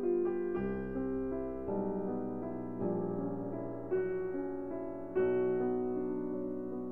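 Background piano music, a slow run of sustained chords with a new chord about every second.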